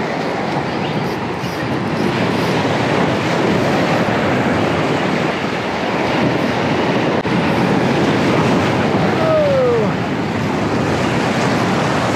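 Surf breaking and washing over shoreline rocks, a steady loud rush of water. A short falling tone sounds briefly about nine seconds in.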